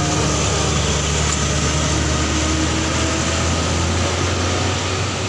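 Big diesel bus engine running steadily as it pulls up a hill and passes, with a low hum and tyre and road noise.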